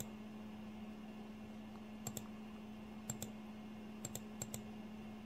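Faint computer clicks: sharp double clicks, a few of them about a second apart from two seconds in, over a steady low hum.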